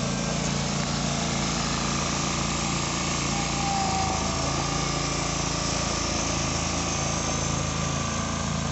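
John Deere 425 garden tractor's engine running steadily as the tractor reverses, with a brief higher whine about four seconds in.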